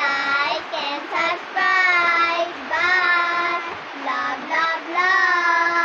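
Two children, a boy and a girl, singing a song together, holding notes with short slides in pitch between phrases.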